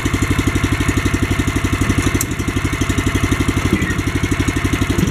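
BCS 853 walk-behind tractor's small air-cooled gasoline engine idling steadily with an even firing beat, and a light click about two seconds in.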